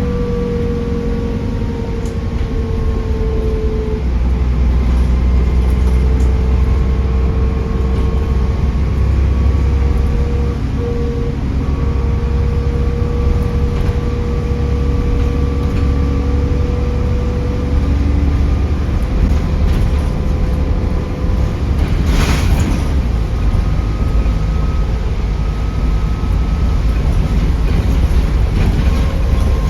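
Interior sound of Stagecoach Midlands bus 18398 underway: a low engine rumble with a steady turbo whistle that drifts slowly in pitch. A sharp knock comes about 22 seconds in.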